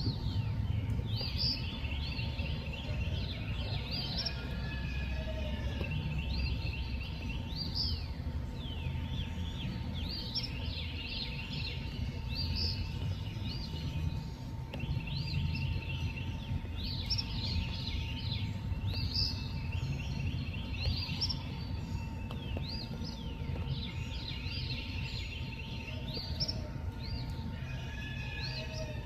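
A chorus of high chirping calls, short sweeps and quick pulsed trills repeated over and over, over a steady low rumbling noise and a faint steady hum.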